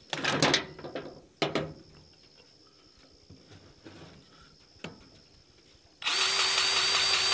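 Cordless grease gun's motor running steadily with a high whine near the end, pumping grease through its hose into a U-joint Zerk fitting on a brush hog drive shaft. Before it starts, a few light clicks and knocks from working the fitting on.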